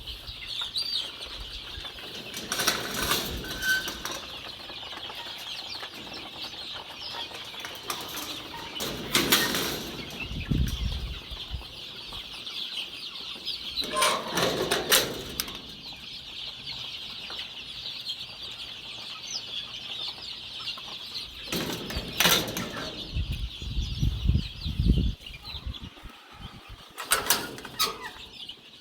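Domestic chickens flapping their wings in about five short bursts, over a steady high-pitched drone.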